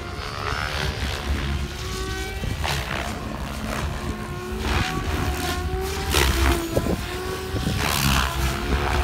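Electric RC helicopter, a SAB Goblin Black Thunder with 690 mm rotor blades, flying hard 3D manoeuvres. The rotor whooshes in repeated swells over a low thrum, and the motor's whine glides up and down in pitch.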